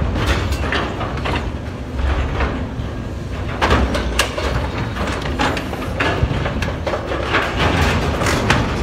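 An excavator's hydraulic demolition jaws tear and crush the steel bow plating of a ship being scrapped. Sharp, irregular cracks and screeches of rending metal come over the machine's steady low engine rumble.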